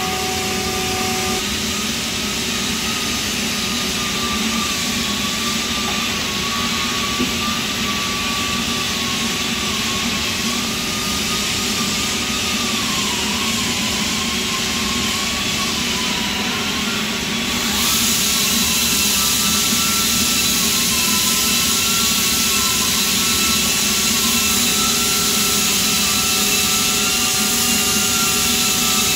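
Steady shop machinery noise with a wavering whine; about eighteen seconds in it steps up and gets louder, with added hiss.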